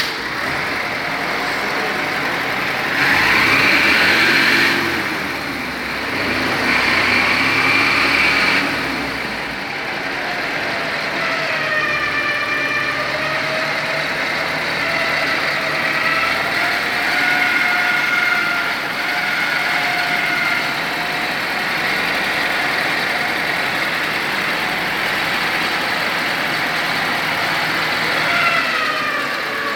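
A motor running steadily with a wavering whine that drifts slowly up and down in pitch, swelling louder twice in the first ten seconds.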